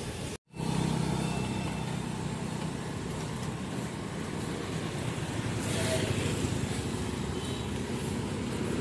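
Steady street traffic noise: vehicle engines and road hum. The sound cuts out briefly about half a second in.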